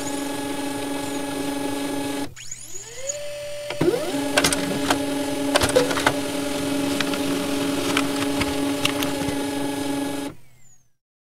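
Steady mechanical whirring, a small motor's hum with scattered clicks. It drops out about two seconds in, spins back up with a rising whine, runs on steadily, and stops about ten seconds in.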